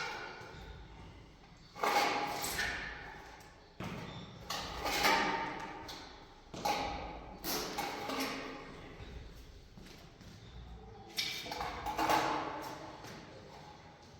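A series of irregular knocks and clatters, about eight in all. Each one starts sharply and rings away over a second or less, as from hard objects being handled, set down or struck.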